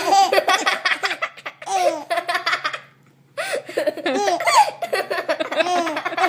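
Baby laughing hard in rapid, repeated bursts. It breaks off briefly at about three seconds, then starts laughing again.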